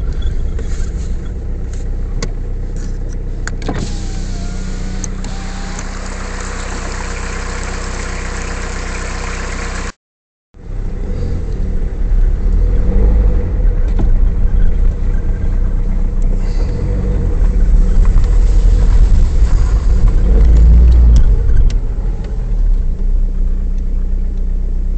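Car driving slowly on a rough country road, heard from inside the cabin: steady engine and tyre rumble with occasional knocks and rattles. The sound drops out completely for about half a second around ten seconds in, and the low rumble is louder after it.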